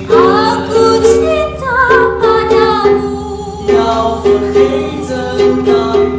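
Voices singing a song in harmony, with held notes and sliding pitches.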